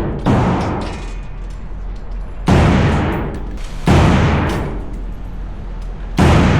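Four gunshots fired at uneven intervals, each with a long echoing tail in an indoor shooting range.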